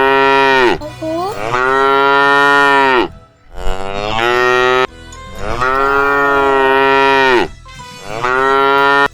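Cattle mooing: long, drawn-out moos repeated one after another with short breaks between them, about four in a row.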